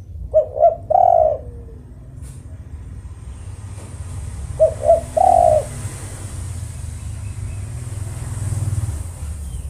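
Spotted dove (tekukur) cooing twice, about four seconds apart; each phrase is two short notes followed by a longer final coo.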